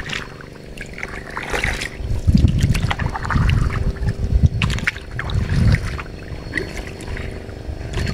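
Kayak paddle strokes in lake water: blades dipping and splashing, with water trickling and dripping off the blades, over bouts of low rumbling.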